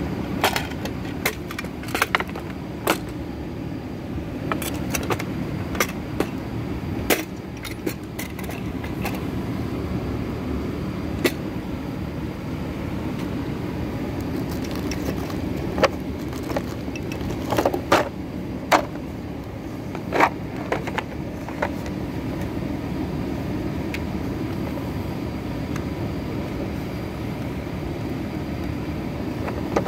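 Hard plastic tool cases and organizer boxes clacking and knocking as they are lifted and shifted in a toolbox drawer. The clicks are scattered and irregular, busiest in the first third and again past the middle, over a steady low background rumble.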